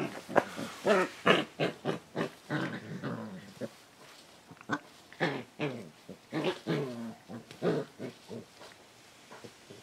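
40-day-old Akita puppies play-fighting, giving many short pitched growls and yaps in quick succession, with a brief lull about four seconds in.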